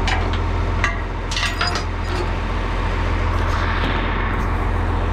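John Deere 4230 tractor's six-cylinder diesel engine idling steadily, with a few sharp metallic clinks of a chain in the first two seconds.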